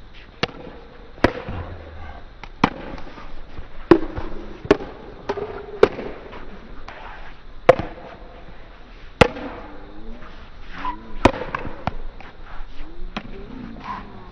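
Pickleball paddles hitting a plastic pickleball back and forth in a rally: sharp pops about every one to two seconds, about nine in all, irregularly spaced.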